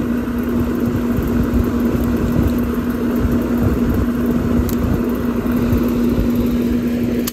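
Outdoor air-conditioning condenser unit running close by: a steady hum from the compressor over the even rush of its fan.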